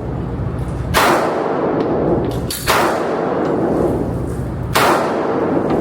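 Three gunshots at a shooting range, sharp reports about two seconds apart, each with a short fading tail, over a steady low hum.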